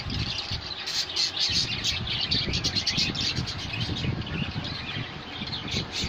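Many caged budgerigars chirping and chattering together in a dense stream of rapid, high chirps.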